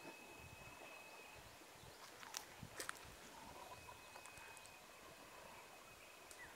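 Near silence: faint outdoor ambience with a thin steady high tone, broken by two sharp clicks or splashes about two and a half seconds in.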